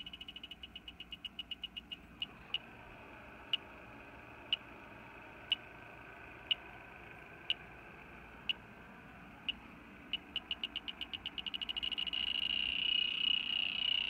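Fieldpiece SRL8 heated-diode refrigerant leak detector ticking with high-pitched beeps. A fast run at first slows to about one tick a second, then the ticks quicken again from about ten seconds in into a rapid chatter, the detector responding to R-410A refrigerant as the probe works along the leaking evaporator coil.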